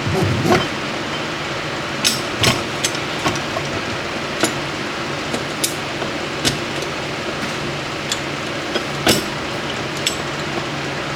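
Metal transmission parts clinking and knocking as they are handled and fitted into the case: about ten separate sharp clicks, a few close together between two and three seconds in, over a steady background hum.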